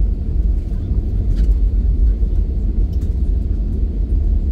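Airliner rolling down the runway on landing rollout with its ground spoilers raised, heard inside the cabin as a steady, loud low rumble.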